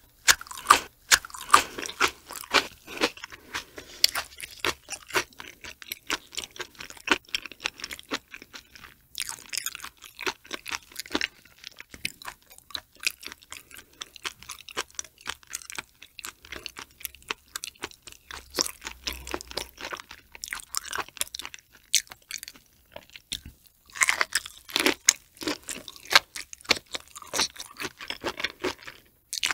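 Close-miked chewing of raw shrimp with flying fish roe: a dense run of wet crunches and small popping clicks. The crunching is busiest at the start and picks up again near the end after a short lull.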